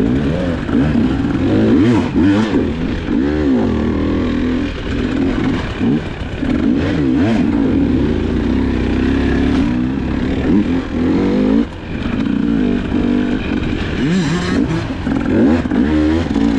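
GasGas EC300 two-stroke enduro dirt bike engine, revving up and down repeatedly as it is ridden along the trail, with a few brief knocks and clatters.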